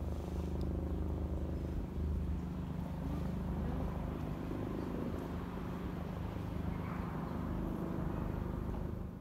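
Steady low rumble and hum of city background noise, with no sharp events.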